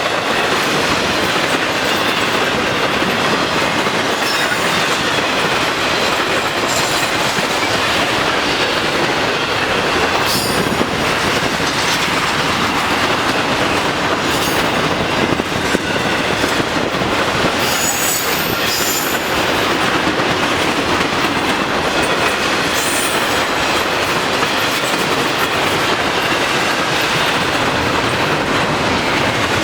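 Intermodal freight cars rolling past steadily, wheels on rail making a dense, even rumble, with brief high-pitched wheel squeals now and then.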